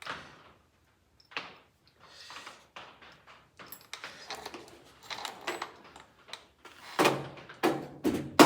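Clicks, scrapes and clunks from the door of a 1956 Ford F100 as its newly fitted window regulator is worked, with several loud sharp knocks near the end.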